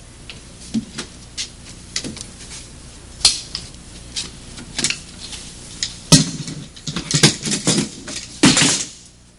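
Scattered knocks and clicks of picture frames and wooden furniture being handled and shifted. It grows busier in the second half, with a sharp knock a little past six seconds and a scraping drag near the end.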